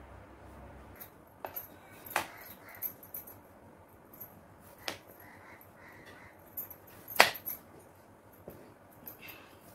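Kitchen clatter of utensils and dishes: a few sharp clicks and knocks at irregular intervals, the loudest about seven seconds in.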